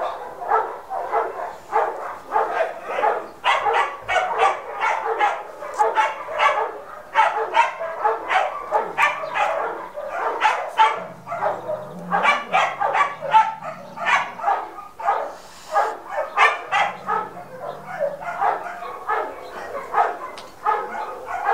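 A dog barking over and over, a few quick barks a second without a break.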